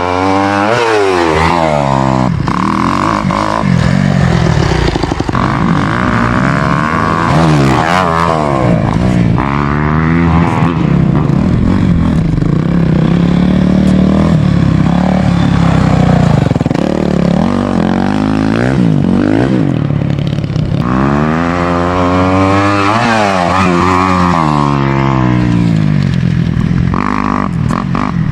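Dirt bike engine revving hard and easing off again and again as the bike is ridden around a track, its pitch repeatedly climbing and dropping through the gears.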